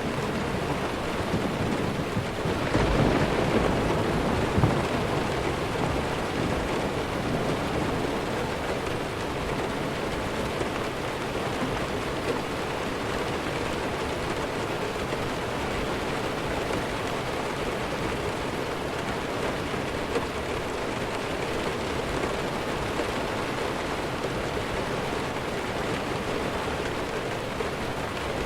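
Steady heavy rain with distant thunder: a low rumble swells about three seconds in and dies away within a couple of seconds, leaving the even hiss of rainfall.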